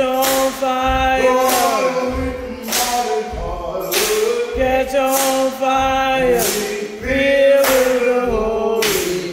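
A slow gospel song sung in church, with hand claps keeping a steady beat about once a second.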